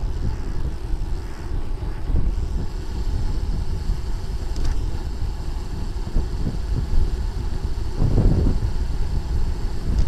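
Wind buffeting the microphone of a camera on a moving road bicycle, a low uneven rumble mixed with road noise, with a stronger gust about eight seconds in.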